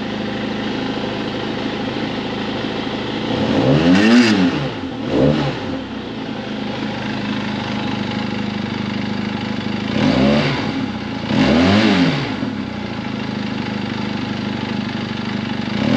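Benelli 502C's parallel-twin engine idling through its stock silencer, with the throttle blipped four times: a strong rev about four seconds in and a smaller one just after, then two more about ten and twelve seconds in, each rising and falling quickly back to idle.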